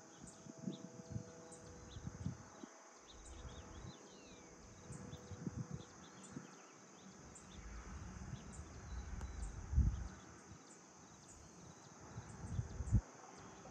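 Rural early-morning ambience: a steady high-pitched insect trill with a faint tick about once a second, scattered bird chirps, and low wind buffeting on the microphone, loudest about ten seconds in and again near the end.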